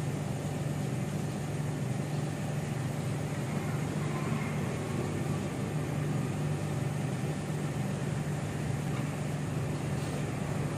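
Steady low mechanical hum, like an idling engine, over a constant noisy hiss, unchanging throughout.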